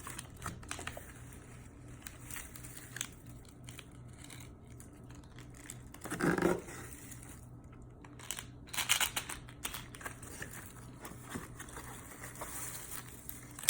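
Plastic candy packaging crinkling and rustling as it is handled, with scattered light clicks and a couple of louder, brief rustles about six and nine seconds in.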